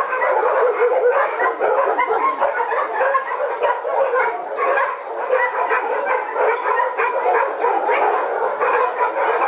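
A kennel of about a hundred dogs barking all at once: a loud, unbroken din of many overlapping barks.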